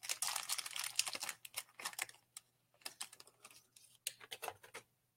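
Rapid crackling and clicking as a blind-box vinyl toy's packaging is torn open and handled. The crackling is dense for the first two seconds, then comes in scattered bunches and stops near the end.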